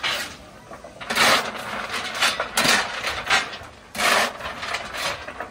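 A fireman's coal shovel scraping and clanking on the footplate of a C56 steam locomotive as coal is fired into the firebox, in several short bursts of metallic scraping and clatter.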